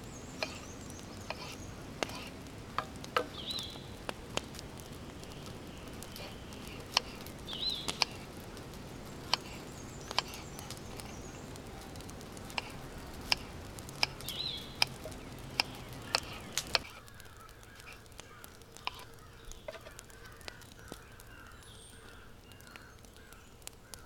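A knife slicing tomato and cucumber on a wooden board, with irregular sharp taps of the blade against the board, while a bird calls three times. About 17 s in the sound drops to a quieter outdoor background with a few faint clicks and bird chirps.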